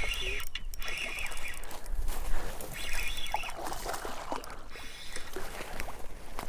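Outdoor creek-side ambience: a bird calling at the start and again about three seconds in, over low wind rumble on the microphone.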